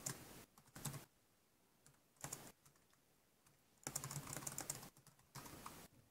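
Quiet computer keyboard typing in a few short spurts of keystrokes with pauses between, the longest run about four seconds in.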